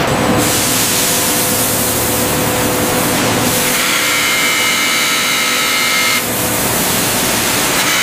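Loud, steady hissing, rattling industrial noise of metal chips pouring off a conveyor into a steel bin. From about four seconds to six seconds, a CNC milling machine cutting a metal block under a coolant jet adds a high, steady whine over the hiss.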